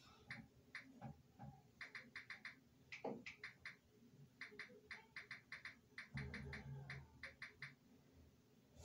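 Faint typing clicks, tapped out in quick runs of three to five, as he searches for a video on a device. A brief low murmur comes about six seconds in.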